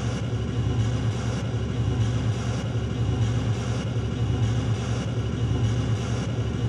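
Loud steady droning noise with a strong low hum.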